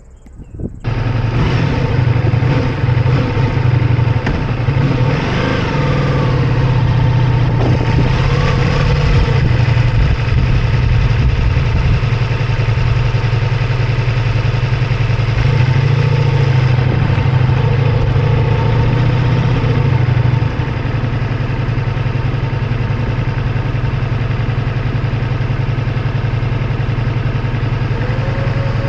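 Ducati Multistrada V4S's V4 engine running on the move, with a steady rush of air noise, picked up by a camera clamped to the mirror. It comes in suddenly about a second in and gets a little quieter about twenty seconds in.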